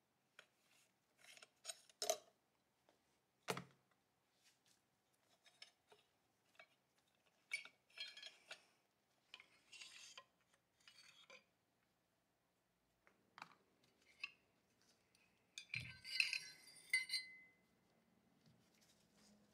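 Scattered light clicks and metal clinks from the parts of a 1920 Remington pump-action .22 gallery rifle as its forend and action slide are worked along the barrel and taken off. A louder clatter of metal parts with a dull knock comes near the end.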